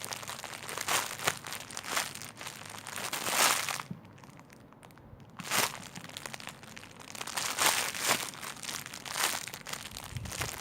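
Crinkling, rustling handling noise as a foam jumbo panda bun squishy toy is squeezed and turned in the hands, in repeated swells with a quieter pause about four seconds in.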